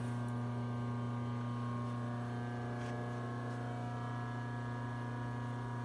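Steady electrical hum, a strong low tone with several fainter steady tones above it, from the shop's three-phase supply running and the air compressor's AC solenoid humming.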